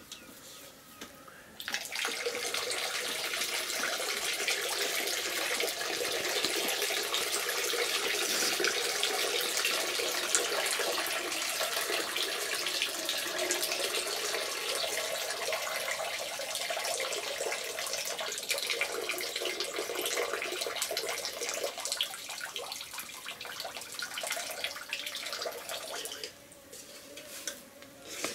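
Water running and splashing as stinging nettle leaves are rinsed in a steel pot under a drum's tap and the water is poured off into a basin. It starts about two seconds in and stops near the end.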